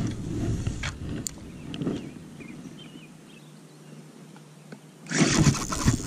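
Light handling sounds and a few soft clicks while a spinning rod and reel are worked. About five seconds in, a sudden loud rush of rustling and buffeting noise starts on the microphone as the camera swings round.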